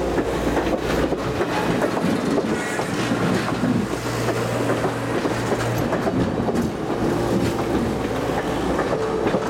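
Passenger cars of a train rolling past close by: a steady rumble with wheels clacking over the rail joints and a steady low hum.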